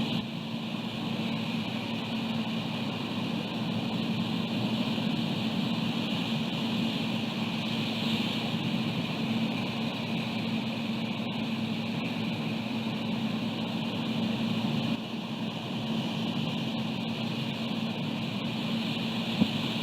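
Steady wind noise on an outdoor nest camera's microphone, over a constant low electrical hum, with one short click near the end.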